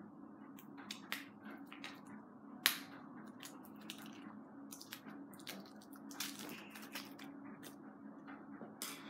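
Scattered small clicks and scratches of hard plastic as a small Num Noms toy is pried at with a thin pointed stick, the sharpest click about two and a half seconds in. A faint steady low hum lies underneath.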